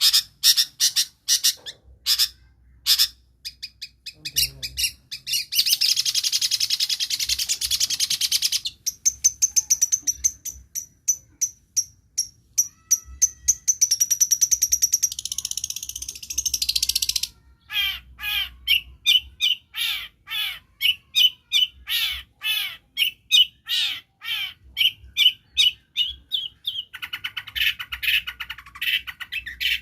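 Long-tailed shrike singing a varied mimicking song: sharp separate chips, a long buzzy trill, strings of fast repeated high whistles, and then rapid falling chirps.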